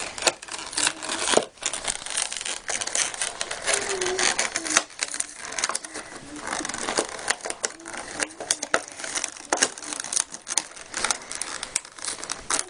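Plastic blister packaging crinkling, crackling and tearing as it is ripped open by hand, a dense run of sharp snaps and rustles.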